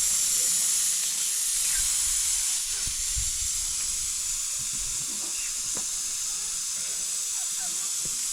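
A steady high-pitched hiss, with a few faint knocks.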